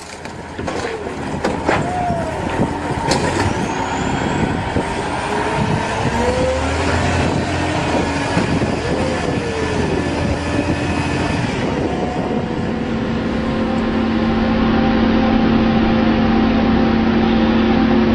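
Heavy machinery running with a dense, steady rumble, with several wavering squeals in the first half and a steady hum taking over later.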